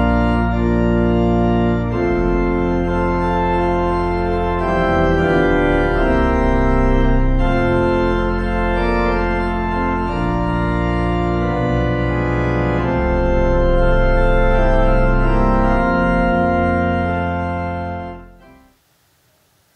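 Organ music: slow, sustained chords changing every few seconds, which fade out quickly near the end to near silence.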